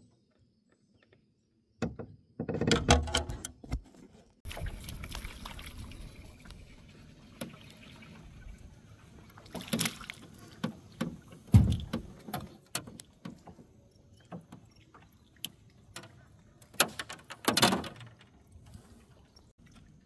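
A hooked bream splashing and thrashing at the water's surface beside an aluminum jon boat as it is reeled in, with scattered knocks and rattles, the sharpest a little past halfway.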